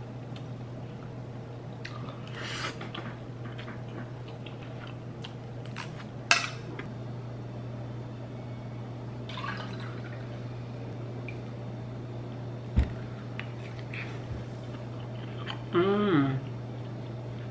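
Quiet eating sounds: wet mouth and slurping noises and a few sharp clinks, over a steady low hum. Near the end, a short voiced 'mm' while chewing.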